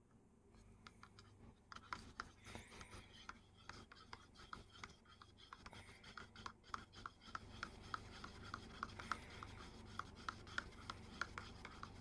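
A flat plastic stirring stick scraping round inside a paper cup, mixing instant cream-soup powder into hot water. It comes in quick, regular faint scrapes and clicks, about two or three strokes a second.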